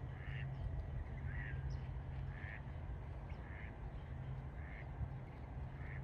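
A duck quacking: six short calls, evenly spaced about once a second, over a steady low hum.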